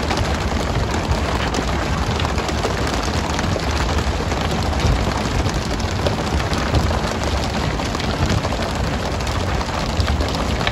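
Steady hiss of the boat's water sprayers raining onto the sea surface, the spray pole-and-line boats use to excite the skipjack tuna, over a low drone from the boat. Scattered small knocks of tuna and poles hitting the deck come through it.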